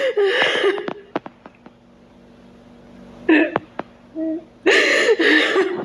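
A woman sobbing: breathy, gasping sobs with a wavering voice at the start and again about five seconds in, with a shorter catch of the voice in between and faint clicks in the quieter stretches.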